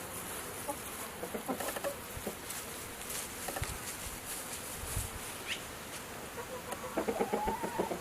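Chickens clucking in short, repeated calls, with a louder run of calls starting near the end.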